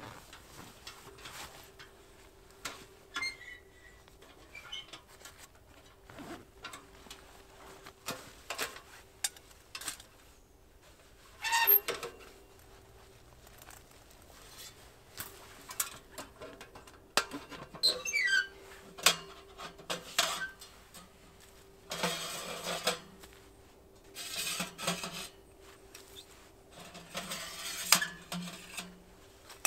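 Metal parts of a Gstove wood stove being unpacked: scattered clinks and knocks, rustling of the bag and dry leaves, and a few long metal-on-metal scrapes as the nested flue-pipe sections are slid out of the stove body.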